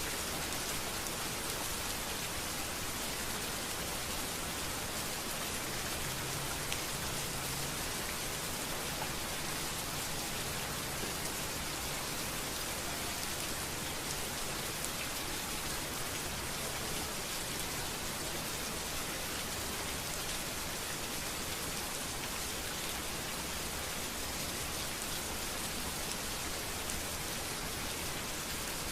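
Steady rain falling on a street, an even hiss of many drops with no let-up.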